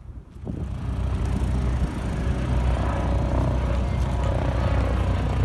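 Helicopter flying overhead: a steady low drone of rotor and engine that swells in over the first second.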